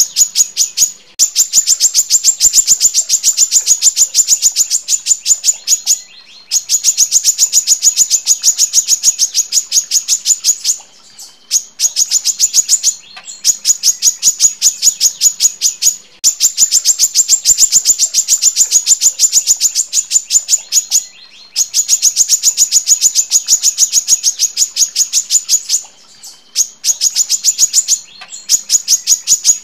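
Female brown-throated sunbird (kolibri kelapa) singing long, rapid trills of sharp high notes, about ten a second, in bouts of several seconds with short pauses between.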